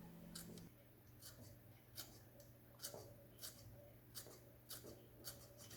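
Near silence with a faint row of sharp clicks, about eight of them, a little over one a second.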